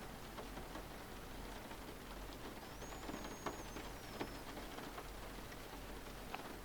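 Steady rain with scattered drips and light taps. About three seconds in, a faint thin high whistle rises, holds and falls away over a second and a half.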